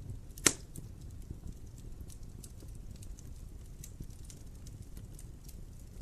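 Wood fire crackling in a fireplace: irregular small pops over a low rumble, with one sharp loud crack about half a second in.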